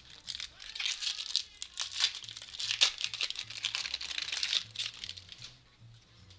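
Foil trading-card pack wrapper being torn open and crinkled, a run of crackling and ripping that lasts about five seconds and dies away near the end.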